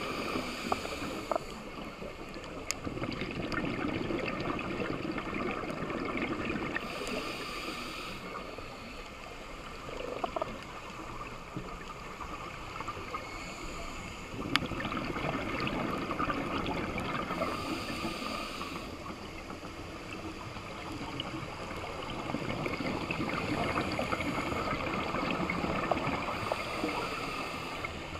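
Underwater audio picked up through a GoPro's dive housing: a scuba diver's regulator breathing, with a hiss of inhalation about every ten seconds and bubbly exhalation noise in between. Scattered sharp clicks sound over the steady watery background.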